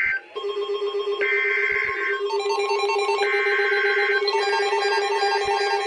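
Emergency Alert System SAME data tones: two harsh, buzzing digital bursts about a second long, a second apart. Under them runs a looping electronic tune of beeps over a steady tone.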